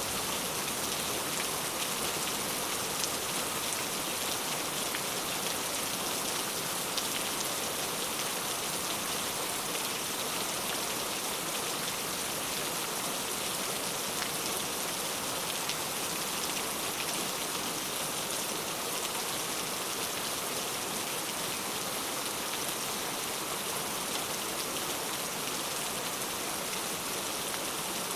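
Heavy rain falling steadily, a dense even hiss of drops with fine patter throughout.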